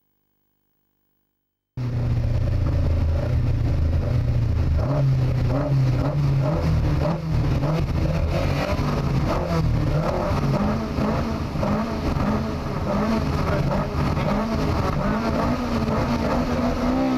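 Lada VFTS rally car's four-cylinder engine, heard from inside the cabin, running with the car standing still and its pitch wavering up and down with light throttle blips. The sound cuts in suddenly about two seconds in.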